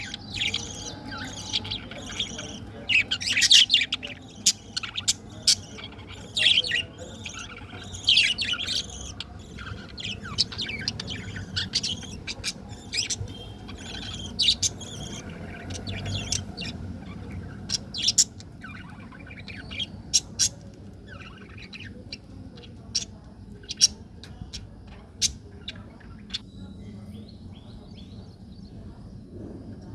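Budgerigars chirping: many short, high chirps close together, thinning out to scattered single chirps in the second half.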